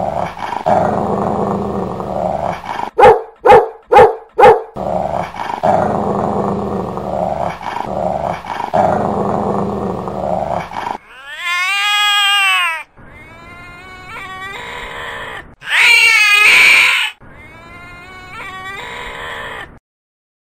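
A dog growling and snarling, with four loud barks in quick succession about three seconds in. Later come several long, pitched whines that rise and fall, the loudest a little over halfway through.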